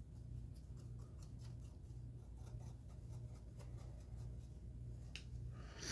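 Soft makeup-type brush rubbing in short strokes over a plastic model ship's hull, blotting off the excess acrylic wash: faint scratchy strokes, a few a second.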